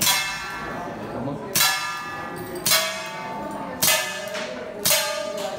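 A CO2 pistol shooting at round steel plate targets, with five sharp hits roughly a second apart. Each hit makes the plate ring like a bell for up to a second.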